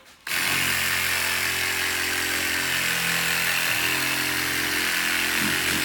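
Mini reciprocating saw driving a bullnose sanding head, running steadily with a hiss of sandpaper sanding drywall bullnose trim. It starts up about a quarter second in.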